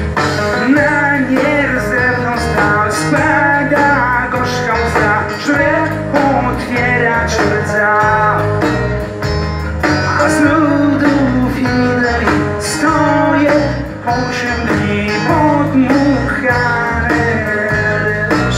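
Live rock band playing a song: acoustic and electric guitars, bass and drums, with a lead vocal melody over a steady beat.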